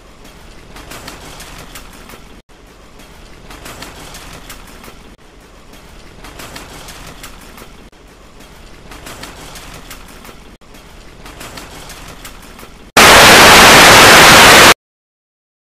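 Shopping-cart wheels rattling and clattering over a hard floor, with brief breaks about every two and a half seconds. About thirteen seconds in, it gives way to a very loud burst of static hiss that lasts under two seconds and cuts off suddenly into silence.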